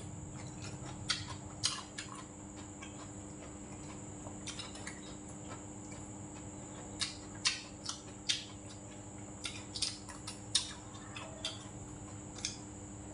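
Close-miked eating: scattered short clicks and smacks of chewing and mouth noise, with a spoon now and then scraping rice from the bowl.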